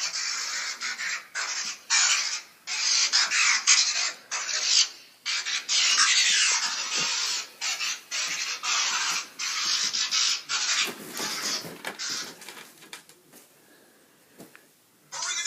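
A ringtone played through a phone speaker, made of choppy bursts of harsh hissing noise like static or scratching, with a few falling glides. The noise stops about eleven seconds in, and the last few seconds are nearly silent.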